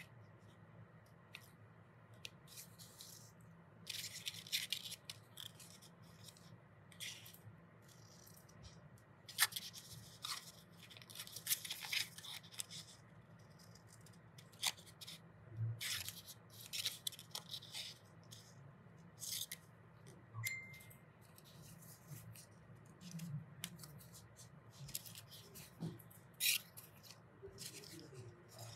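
Scissors snipping through thin paper, cutting petal shapes: a run of short, irregular snips with gaps between them.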